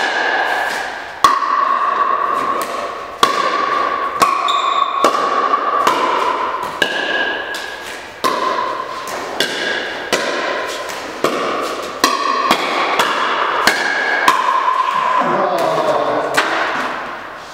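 Pickleball rally: paddles striking the hollow plastic ball, a sharp pop every second or two, each hit leaving a ringing tone that hangs on in the barn until the next. The hits stop a few seconds before the end.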